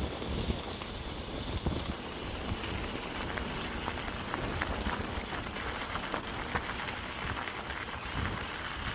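Mountain bike rolling over a dirt and gravel trail: a steady rushing noise with irregular small clicks and crunches from the tyres on loose stones.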